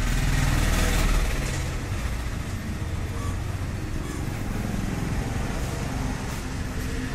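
A motor vehicle's engine rumbling, loudest in the first second and a half, then settling into a steady lower rumble.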